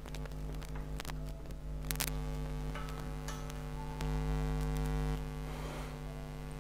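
Steady electrical mains hum, swelling for about a second around four seconds in, with a few faint clicks.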